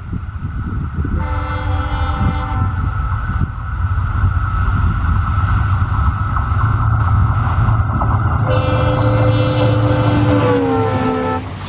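Diesel locomotive of Indian Railways running close by with a low engine rumble and a steady high whine, sounding its horn twice: a short blast about a second in and a longer one later whose pitch drops near its end.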